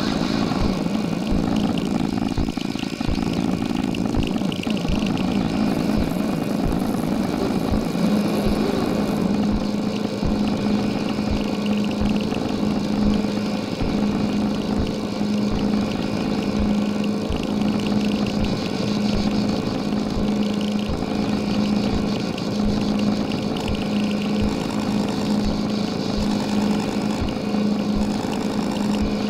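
Electronic noise music: a dense, rumbling, engine-like drone. A low hum that pulses on and off joins it about eight seconds in.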